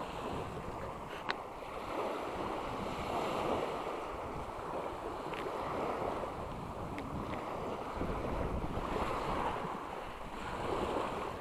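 Small sea waves washing and lapping at the shore, with wind rumbling on the microphone.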